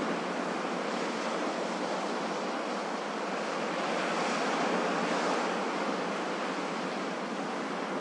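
Ocean surf washing onto a beach: a steady hiss of breaking waves that swells a little around the middle and then eases.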